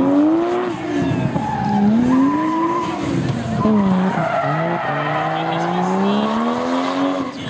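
Car engine revved hard through a drift, its pitch swinging up and down in repeated swells, dipping about four and a half seconds in and then climbing steadily, with the tyres squealing and skidding on the asphalt.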